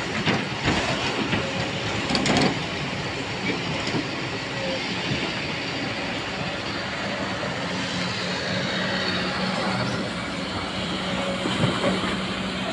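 Excavator's diesel engine running steadily, with a few metallic clanks and knocks in the first two and a half seconds.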